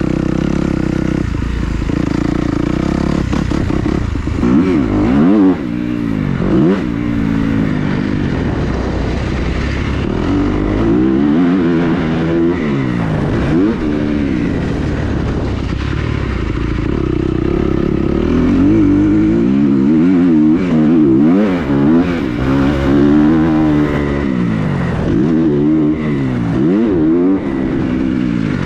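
Dirt bike engine revving hard and dropping off again and again, its pitch climbing and falling as the rider goes on and off the throttle, with steadier stretches between the bursts.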